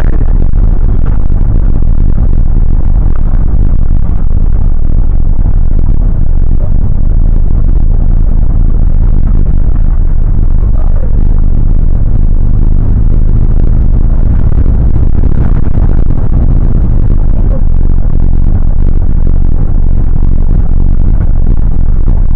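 Inside a moving bus: the engine's steady low drone and road rumble, with light rattling of the interior.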